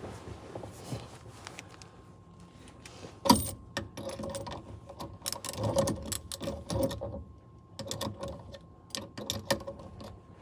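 Metal hand tools and parts clicking and clanking in irregular bursts, with one sharp metallic knock about three seconds in.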